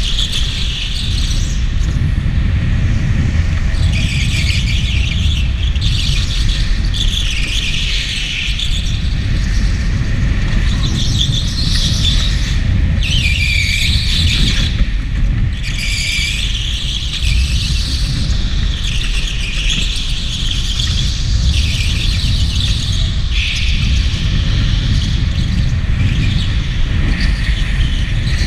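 Electric go-kart's tyres squealing on a smooth indoor concrete track, over and over through the corners, each squeal lasting a second or two, over a steady low rumble.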